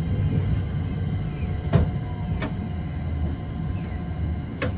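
Hakodate City streetcar running, heard from inside the tram: a steady low rumble of wheels and running gear, with three sharp clicks spread through it.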